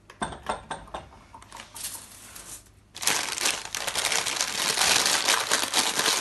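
Baking paper crinkling loudly as hands fold and press a parcel shut on a sheet of aluminium foil, starting about three seconds in after a few soft clicks.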